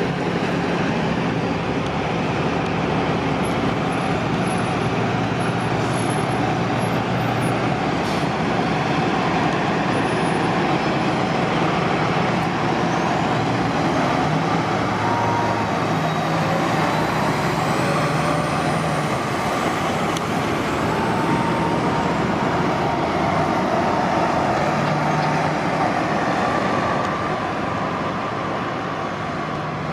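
City transit buses running, with a steady engine drone and road noise. The engine hum shifts in pitch now and then as buses move.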